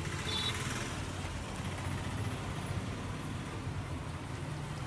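Undampori deep-frying in a large iron wok, the hot oil sizzling, over a steady low rumble. A short high-pitched note sounds just after the start.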